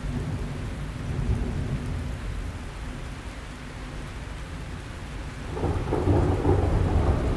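Wind buffeting the microphone outdoors: an uneven low rumble that grows louder about three-quarters of the way through.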